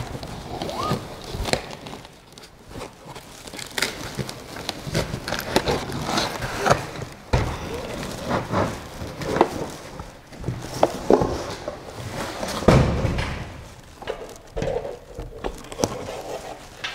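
Unboxing noises from a 3D printer's metal parts and their cardboard and foam packaging being handled: irregular rustles, scrapes and knocks as parts are lifted out and set down, with a heavier thump about three-quarters of the way through.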